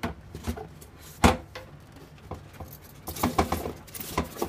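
Tongs and a live crab's claws and legs clicking, tapping and scraping against a hard plastic tray as the crab is prodded. There is one loudest knock about a second in and a quick run of taps about three seconds in.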